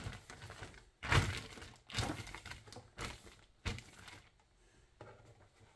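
Plastic packaging bag crinkling and rustling as it is handled, in several bursts, the loudest about a second in, with a sharper knock later on.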